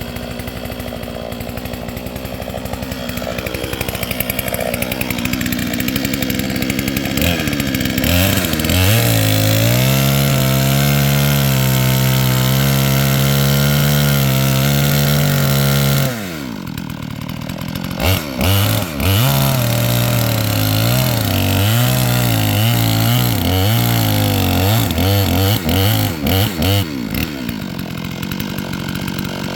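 Two-stroke chainsaw cutting bald cypress. It runs at part throttle at first, then holds a steady high pitch at full throttle for several seconds. It drops off about halfway through, then revs up and down unevenly under load for the rest.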